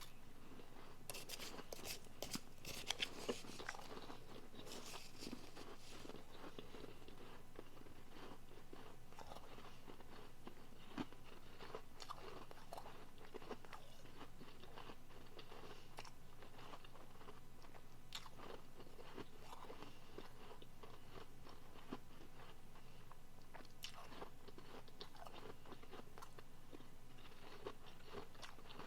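Someone biting and chewing soft, refrozen, powdery blender ice. A dense run of crunches comes in the first few seconds, then sparser crunching continues as they chew.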